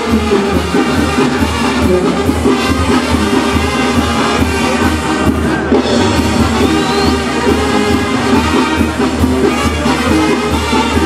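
Mexican brass-band music with trumpets, trombones and drums playing continuously.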